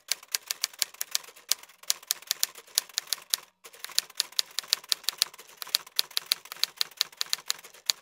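Typewriter sound effect: rapid, irregular key clacks, several a second, with a short break about three and a half seconds in.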